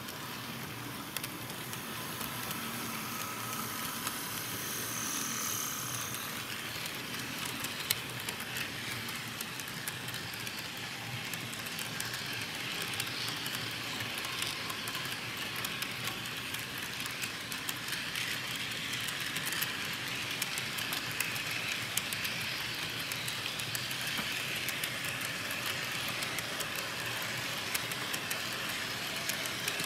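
HO scale model freight train running along the track: a steady rolling hiss of the cars' wheels on the rails, with many quick clicks and rattles as the wheels cross the track.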